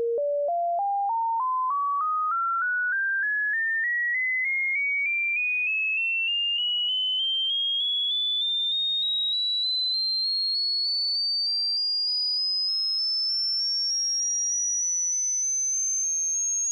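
Hearing-test tone: a single pure electronic tone that climbs steadily in pitch in small steps, about three a second, from a mid-range note to a very high, thin whistle, at a steady level.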